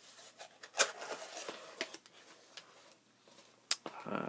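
Cardboard kit box being opened by hand: scraping of the cardboard lid and flaps, with two sharp snaps, about a second in and near the end.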